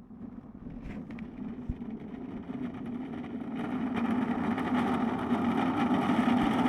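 Tyre and wind noise of an unpowered gravity racer rolling down a wet road, growing steadily louder as it picks up speed.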